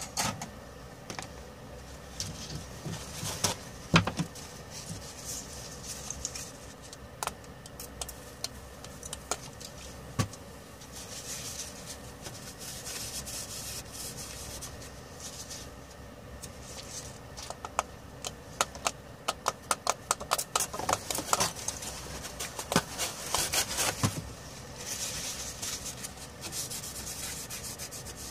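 A tissue wet with alcohol is wiped back and forth over a laptop motherboard to clean it, a scratchy rubbing sound. Scattered sharp clicks and ticks run through it, with a quick run of them in the second half.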